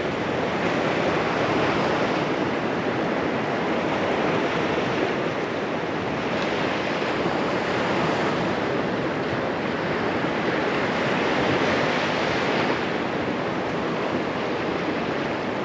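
Gulf surf breaking and washing up a sand beach: a steady rush that swells and eases every few seconds.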